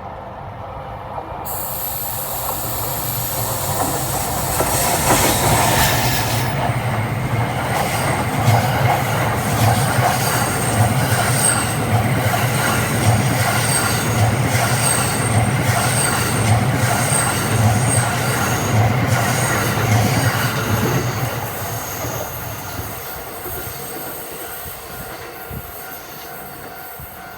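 Cassiopeia sleeper train, hauled by an EF510 electric locomotive, passing close by. The rumble builds over the first few seconds, then the wheels clack over the rail joints in an even rhythm for about fifteen seconds before the sound fades away.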